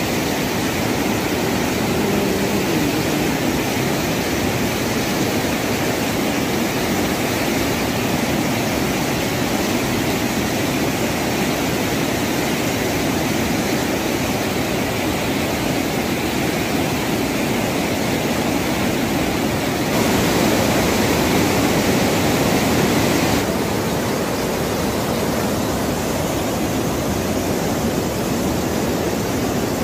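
A swollen, muddy river in flood rushing past, a steady, even noise that grows a little louder for a few seconds about twenty seconds in.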